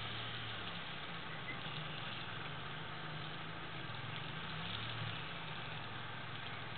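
Four-wheeler (ATV) engine running at a distance, its note rising and falling slightly as it is ridden over dirt piles, under a steady hiss.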